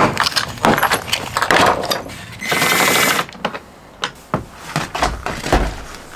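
Plastic interior trim panels of a Hyundai Starex van being pried and pulled off by gloved hands: a run of clicks, knocks and rattles as the clips give, with a harsh scraping stretch about two and a half seconds in and a few dull thumps near the end.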